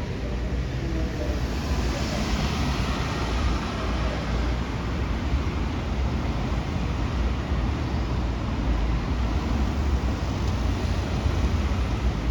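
Steady road vehicle noise: a deep low rumble under an even hiss of tyres and traffic.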